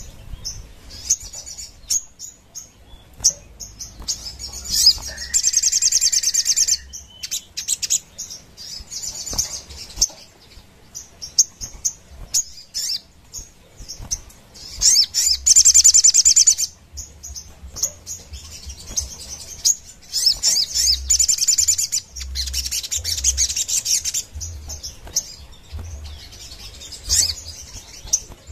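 A caged sogon bird singing vigorously: high-pitched, rapid trilled phrases lasting a second or two each, with short chirps between them.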